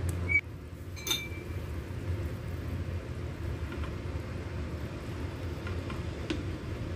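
A metal ladle stirring soup in a stainless steel pot, with one clear ringing clink against the pot about a second in and fainter scrapes after, over a steady low rumble.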